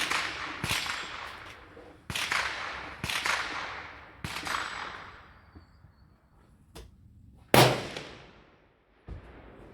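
Rifle shots, about six, spaced roughly a second apart, each sharp crack trailing off in a long echo; after a lull come one faint shot and then the loudest, closest shot.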